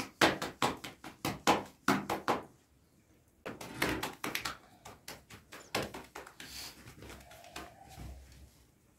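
A round of bread dough slapped back and forth between the palms to flatten it: a quick, even run of sharp slaps, about three a second, stopping after about two and a half seconds. Then softer, uneven handling sounds as the dough is stretched by hand.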